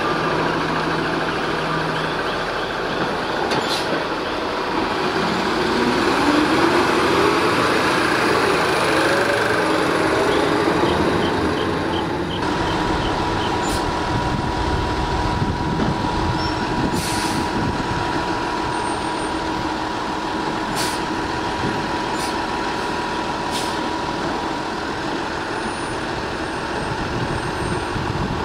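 American LaFrance Condor front-loader garbage truck with a New Way Mammoth body, its diesel engine revving up in a rising pitch over several seconds. After a cut the truck moves off with a steady whine, broken by a few short air hisses.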